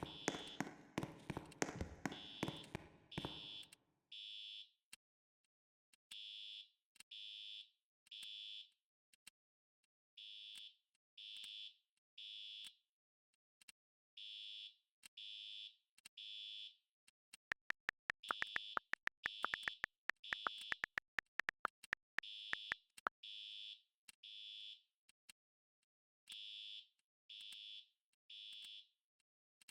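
Fire alarm sounding a high-pitched beeping signal in groups of three beeps and a pause, over and over: the temporal-three evacuation pattern. For the first few seconds there is a noisy jumble with knocks, and in the middle a rapid run of sharp clicks lasting about five seconds, louder than the alarm.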